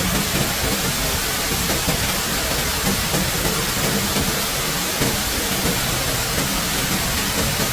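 Steady, even rushing hiss of water, such as rain or a river.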